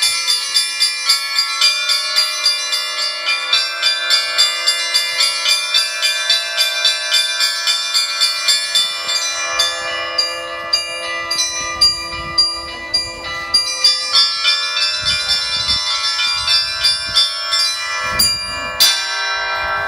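Russian Orthodox church bells of the Rostov Kremlin belfry ringing in a continuous peal. Several bells of different pitches are struck in a quick rhythm of about three strokes a second, their tones ringing on and overlapping. A low rumble comes and goes in the second half.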